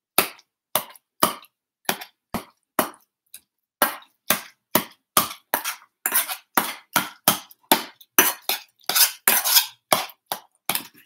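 A metal spoon mashing drained firm tofu in a stainless steel bowl, clinking and scraping against the bowl in short repeated strokes, about three a second.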